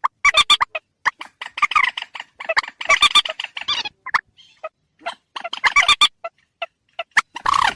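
Mandar (rail) bird call played as a hunting lure: rapid clusters of short, sharp, clucking notes repeating over and over, with brief pauses between the bursts.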